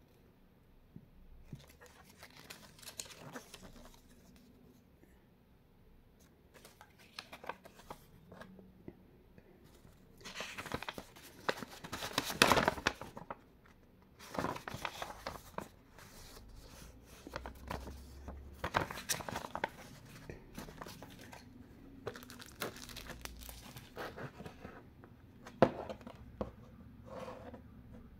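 Paper rustling and crinkling in irregular bursts as a printed card sleeve and a folded instruction leaflet are handled and unfolded, loudest for a few seconds in the middle. A sharp click stands out near the end.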